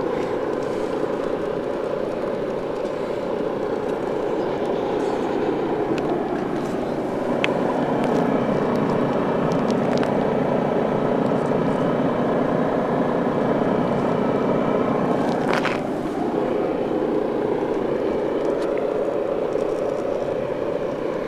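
Heavy truck's diesel engine idling steadily. It grows a little louder about eight seconds in and eases off again around sixteen seconds, with a few faint clicks.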